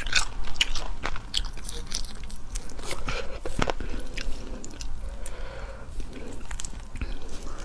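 Shells of small spicy shrimp cracking and crunching as they are pulled apart by hand and bitten: a string of sharp, irregular crackles, with one louder snap about three and a half seconds in.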